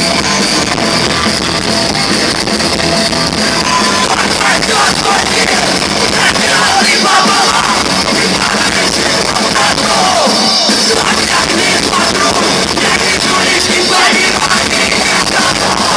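Rock band playing live at full volume, drums and guitars.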